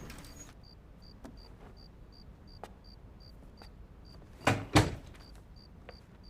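A steady, light, high ticking, about three ticks a second, with a few soft knocks. Two louder thumps come close together about four and a half seconds in.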